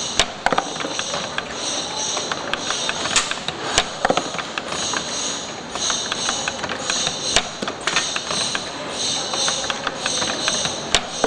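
CNC-620R spring-forming machine running its cycle on an extension spring, a busy mechanical clatter of clicks and knocks with a high hiss that comes and goes every second or two.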